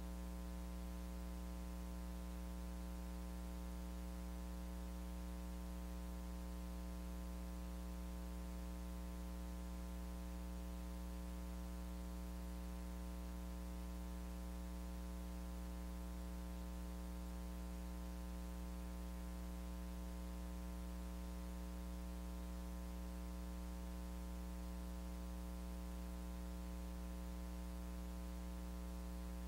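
Steady electrical mains hum and buzz with a constant hiss, unchanging throughout.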